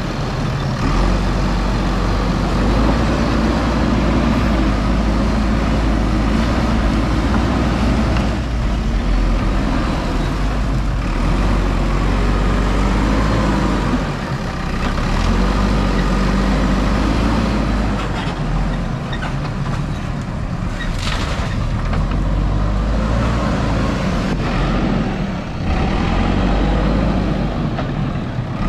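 Diesel engine of a JCB 3DX backhoe loader running steadily under load while it loads gravel into a tipper truck, with a short hiss about two-thirds of the way through.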